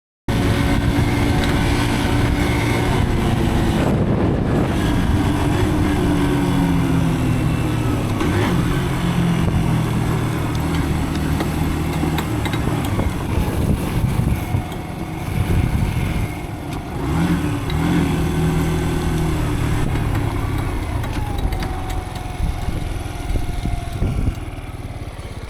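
Dirt bike engine running under way, its pitch rising and falling repeatedly as the throttle is opened and closed, easing off and getting a little quieter near the end.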